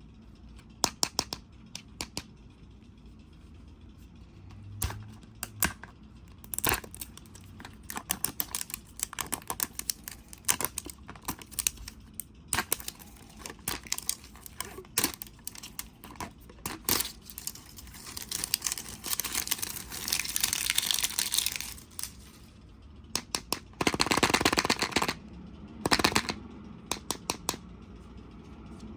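Toy packaging being handled and opened: plastic crinkling with many sharp clicks and taps, and two longer stretches of rustling, one about two-thirds of the way through and a shorter one near the end.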